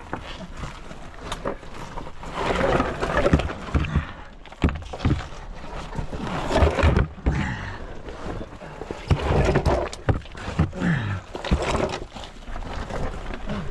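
People scrambling and crawling through a tight, rocky passage: irregular scraping and scuffing of bodies and clothing against rock and dirt, with knocks and thumps, and a short grunt near the end.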